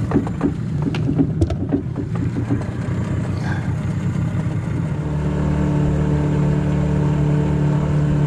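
Outboard motor on a small aluminium boat running under way. A few knocks and rattles come in the first couple of seconds, and about five seconds in the motor settles into a louder, steady note.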